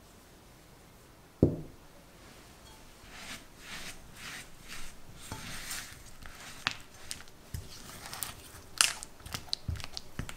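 Silicone spatula mixing sugar into cream cheese in a glass bowl: repeated gritty scraping and smearing strokes with sharp clicks, starting about three seconds in. A single low thump comes about a second and a half in.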